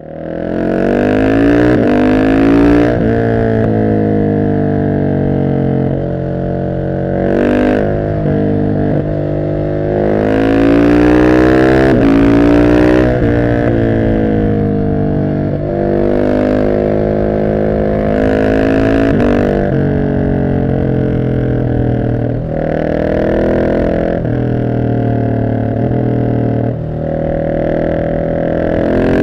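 Husqvarna 701 SM's single-cylinder engine through an Arrow full exhaust, accelerating hard up through the gears: the pitch rises steadily, then drops sharply at each gear change, several times over.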